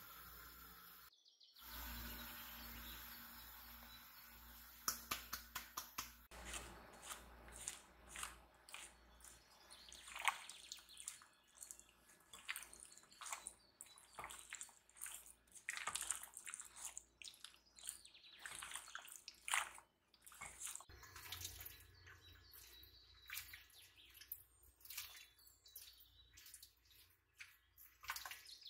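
Faint water dripping and splashing, with sharp small clicks and taps scattered through it; a quick run of clicks comes about five seconds in.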